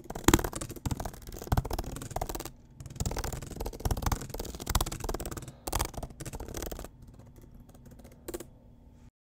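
Typing on a laptop keyboard: a fast, irregular run of key clicks that thins out in the last two seconds, with one last keystroke shortly before it stops.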